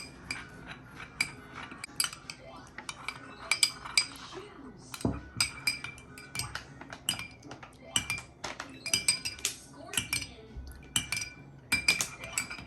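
A metal spoon stirring in a glass, clinking against its sides in irregular runs of sharp taps that ring briefly.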